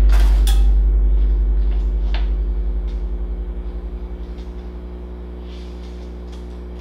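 Background music ending: a deep held bass tone fading away over about five seconds and leaving a steady low hum, with a few short clicks in the first two seconds.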